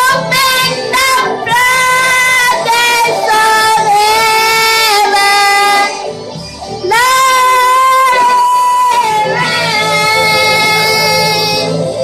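A high voice singing long, held, sliding notes over instrumental backing in a worship song. There is a short break about six seconds in.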